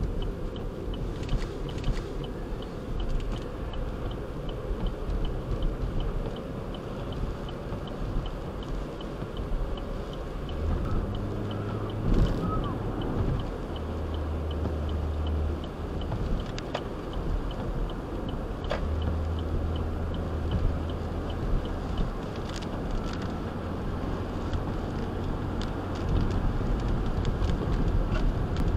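Car cabin noise while driving in heavy rain: steady road and engine hum, with rain and the windshield wipers on the glass. A faint regular tick comes about twice a second throughout.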